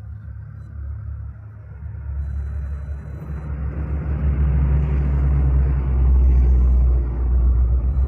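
A road vehicle approaching, its low engine rumble and tyre noise growing steadily louder over several seconds and staying loud near the end.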